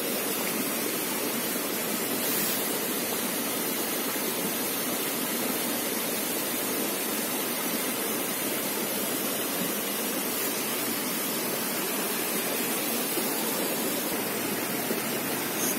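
Steady rushing of running water, even and unchanging.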